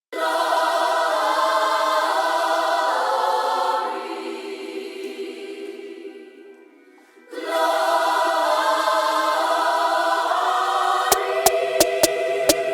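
Background music: sustained choir-like chords that fade out about halfway through and swell back in, then a beat of sharp, regular hits comes in near the end.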